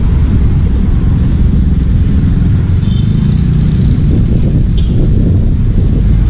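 Street traffic going by at close range: a motorcycle tricycle's engine and passing cars, over a heavy, steady low rumble.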